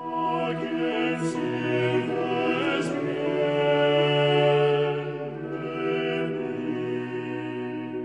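Classical music with singing voices holding long notes. It comes in sharply and grows louder toward the middle.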